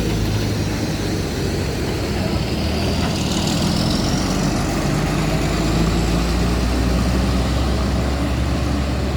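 Tour bus diesel engine running at close range, a steady low drone, with a faint high whine gliding upward from about three seconds in.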